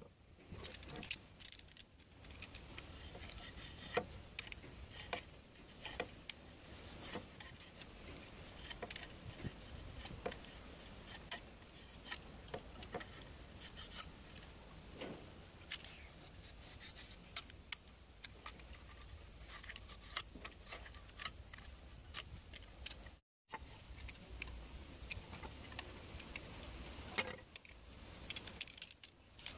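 Thin bamboo strips being scraped and whittled with a knife: irregular short scrapes with small clicks and taps as the strips are handled, over a low steady hum. The sound cuts out briefly about two-thirds of the way through.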